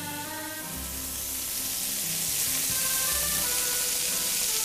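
Background music with held notes, over meat sizzling on a grill; the sizzle grows louder after about a second.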